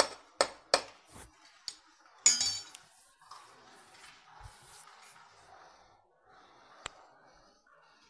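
A quick run of about five sharp clinks and taps, then a louder ringing clink a little over two seconds in. Soft scratchy noise follows, with a single sharp click near the end.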